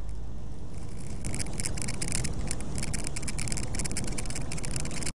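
Semi truck cab noise as the truck accelerates onto a highway: a steady low engine and road rumble. About a second in, a rapid, irregular ticking rattle joins it.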